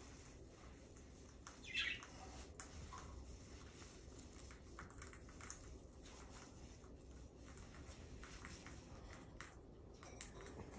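A white-bellied caique gives one short, high chirp about two seconds in. The rest is faint room tone with a few soft ticks.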